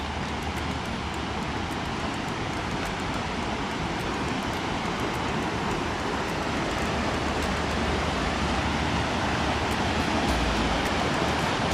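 Steady rush of a fast-flowing river, growing slightly louder, with a brief low rumble near the end.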